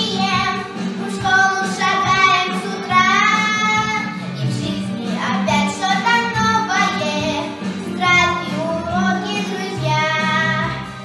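A young girl singing a song solo, holding and bending sung notes over instrumental accompaniment.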